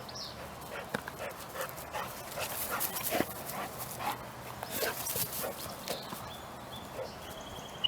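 A dog panting and mouthing a rope tennis ball. Scattered clicks and short noisy bursts come thickest in the middle.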